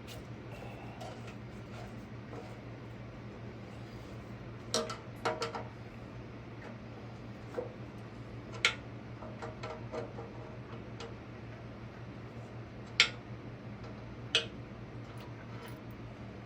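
Scattered sharp metallic clicks and clinks of an Allen wrench and bolts as the lathe bed is bolted to its stand. The loudest click comes about two-thirds of the way through, over a steady low hum.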